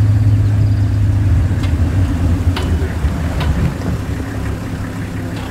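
Safari game-drive vehicle's engine running with a steady low hum, with a few faint clicks or rattles over it.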